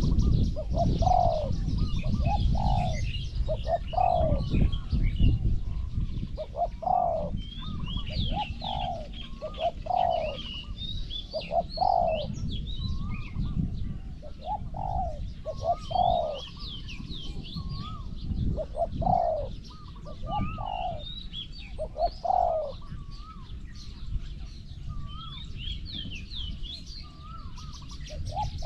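Spotted doves cooing: short coo notes in little groups, repeated all through, with small birds chirping faintly in the background. A low wind rumble is heaviest in the first few seconds.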